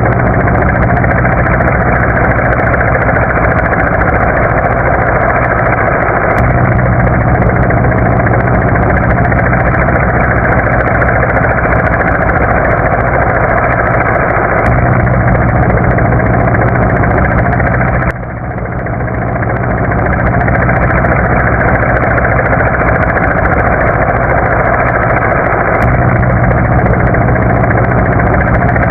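Helicopter running steadily: a dense whooshing noise over a low, even engine-and-rotor drone, with a brief drop in level about eighteen seconds in.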